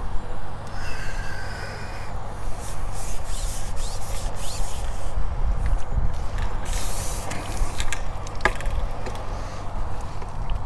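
Splashing and dripping water as a small fish is netted and lifted out of the lake in a landing net, with a few sharp clicks over a steady low rumble.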